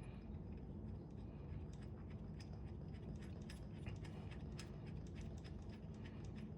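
Scattered light clicks and taps of hand tools and metal parts being handled while a transmission strainer is lined up and its bolt started, over a steady low hum.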